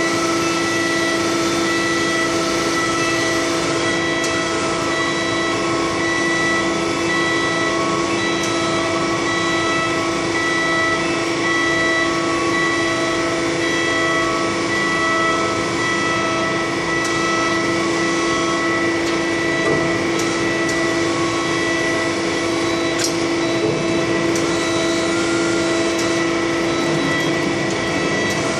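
Steady machinery drone with several whining tones held at constant pitch, one low and one high standing out, running without a break.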